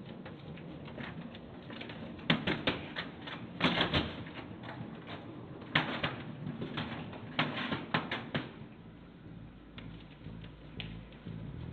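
Wheeled plastic bin cart being pushed over a hard hallway floor, its casters and bin rattling and clattering in irregular bursts of clicks, busiest through the middle and dying down near the end.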